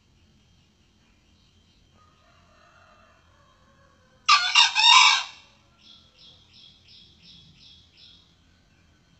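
Male junglefowl crowing once, a short hoarse crow about four seconds in. It is followed by a run of about eight quick high chirps, over a faint insect hum.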